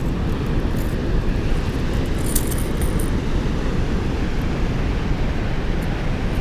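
Steady, deep rush of water pouring over a river spillway, with a few light clicks about two seconds in.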